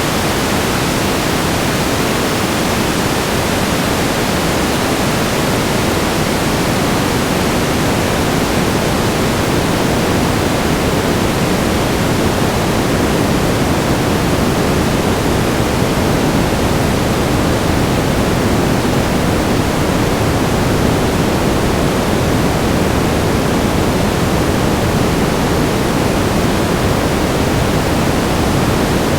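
Static noise: a steady, even hiss with more weight in the low and middle range than at the top, like pink noise.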